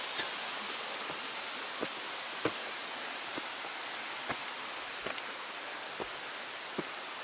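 Footsteps on a rocky mountain trail, a short soft step about once a second, over a steady hiss.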